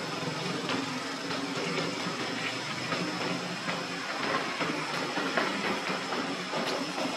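Steady outdoor background noise: a constant hiss with a thin, high, unchanging whine over a low hum, and scattered faint ticks.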